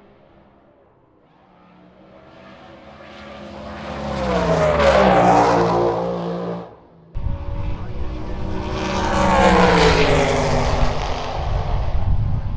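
Drag-racing cars passing one after another. The first engine builds to a peak about five seconds in and drops in pitch as it goes by. After an abrupt cut a second car comes in with a heavier rumble, its pitch falling as it passes.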